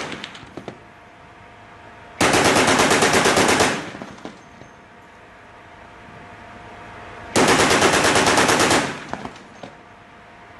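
Mk38 25mm machine gun system's M242 Bushmaster chain gun firing: a single shot at the start, then two bursts of rapid automatic fire about a second and a half long, several seconds apart, each trailing off in echoes.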